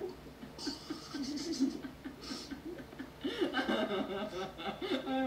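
Laughter: a run of short, choppy chuckles that grows louder about three seconds in.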